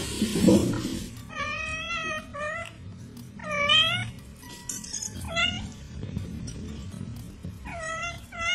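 Cat mewing, about four high-pitched calls that bend up and down in pitch, over background music.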